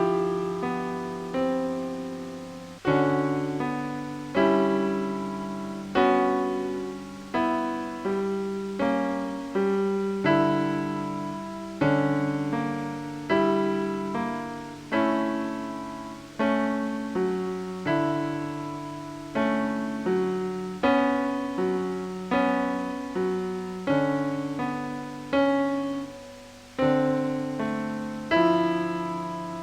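Slow piano music: chords struck about every second and a half, each left to ring and fade, over held low notes.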